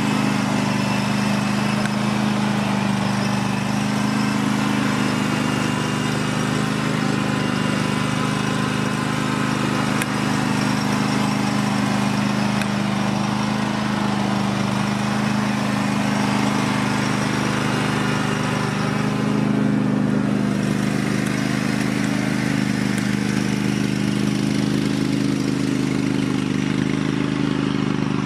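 Cub Cadet GT2544 lawn tractor's engine running steadily at an even speed while the tractor drives back and forth across grass.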